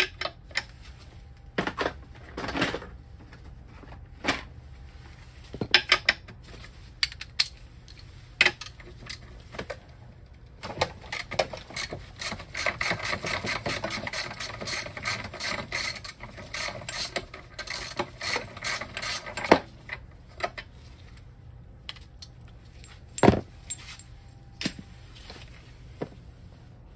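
Ratchet wrench clicking as the axle nut of an electric scooter's rear hub motor is loosened: scattered clicks at first, then a run of rapid clicking for several seconds in the middle. A single sharp knock comes about three-quarters of the way through.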